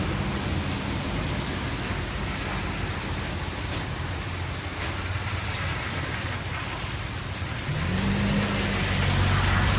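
Steady rain falling, an even hiss. Under it a low hum grows louder with a brief rising pitch about eight seconds in.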